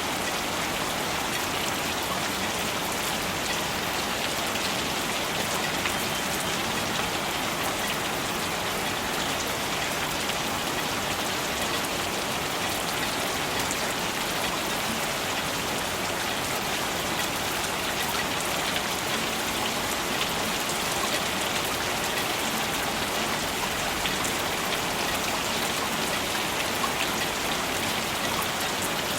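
Steady rain falling and pattering on surfaces, a dense even hiss full of fine drop ticks.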